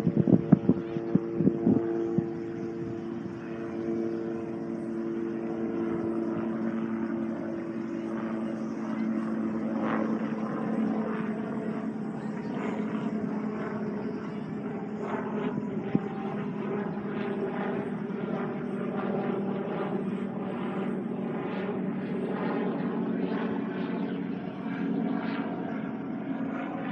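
A motor droning steadily, with several held tones that slowly sink in pitch.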